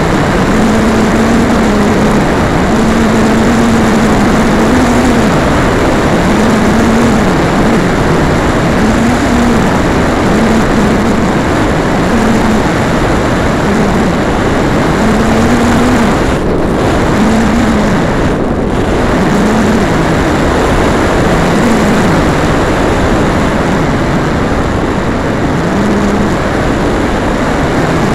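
Jodel airplane's engine and propeller running in flight, heard through an onboard camera as a loud steady rush of wind and propeller noise. A low engine hum under the rush keeps rising and falling slightly in pitch. The hiss dips briefly twice about two-thirds of the way through.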